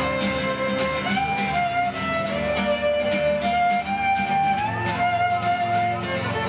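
Live instrumental passage of fiddle and acoustic guitar: the fiddle plays long held melody notes that slide up in pitch a couple of times, over strummed acoustic guitar.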